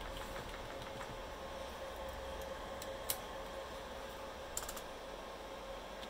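Dell Precision T7500 workstation running as it boots, a steady fan hum with a faint constant tone, broken by a few sharp light clicks about three seconds in and again near five seconds.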